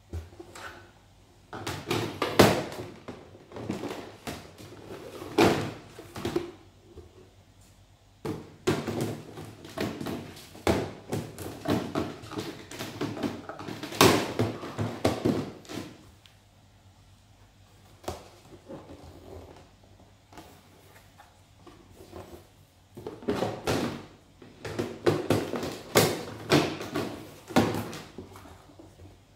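Plastic drawer unit being handled: hard plastic knocking, clicking and clattering in three bursts with pauses between, like drawers and panels being pushed and slotted together.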